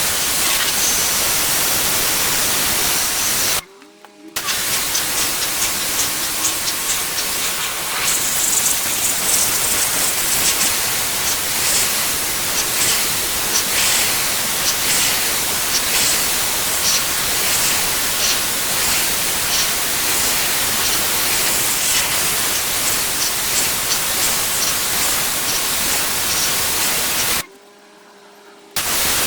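Pressure washer jet spraying onto block paving: a steady, loud hiss and spatter of water, cutting out briefly about four seconds in and again near the end.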